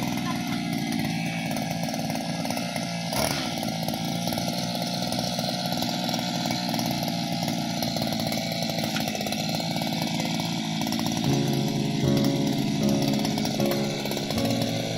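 Motorised oil palm pole cutter (Cantas) running steadily on its small petrol engine.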